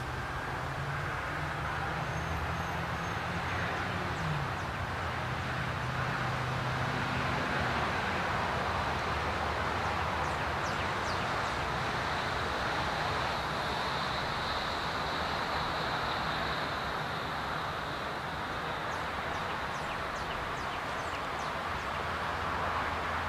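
Steady outdoor rush of distant road traffic, with a low engine hum in the first few seconds and a few faint bird chirps.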